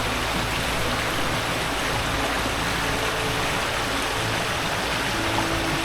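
Fast-flowing river and waterfall water rushing: a steady, even noise.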